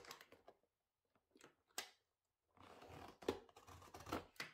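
Utility knife blade cutting into the end of a cardboard box: a few short scratchy strokes, then from about halfway a continuous scraping cut.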